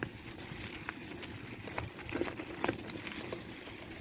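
Bicycle coasting downhill, its tyres giving a steady low rumble on the road, with scattered small clicks and rattles.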